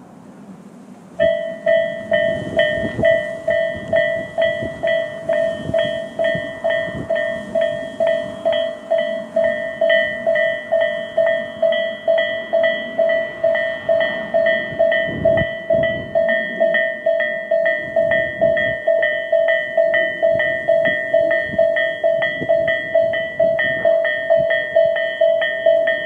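Japanese railway level-crossing warning bells (Tobu 'sound A' electronic type, on both sides of the crossing) starting about a second in and then dinging rapidly and steadily: the crossing has been activated by an approaching train.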